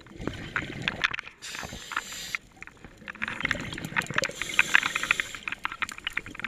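Underwater scuba sounds picked up through a camera housing: a burst of exhaled regulator bubbles about a second and a half in, then another exhale around four to five seconds in, mixed with a run of sharp crackling clicks, the crackling the diver takes for fish feeding.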